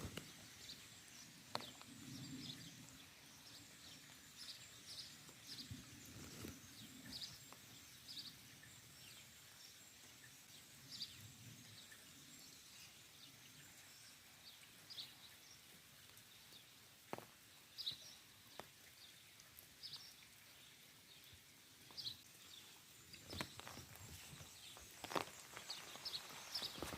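Faint outdoor background with scattered short, high chirps of small birds and a few sharp taps.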